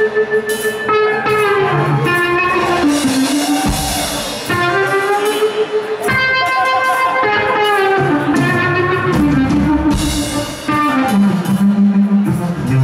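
Live blues-rock from a two-piece band: a lead line on an overdriven electric guitar, with held notes that bend and slide in pitch, over a drum kit.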